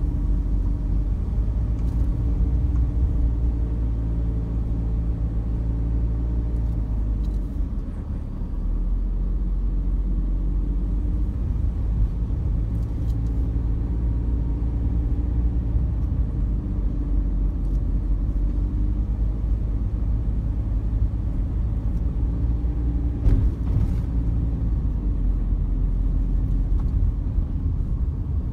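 Car engine and road noise while driving: a steady low rumble with a few even engine tones, easing briefly about eight seconds in. Occasional faint knocks, and one sharper knock about five seconds before the end.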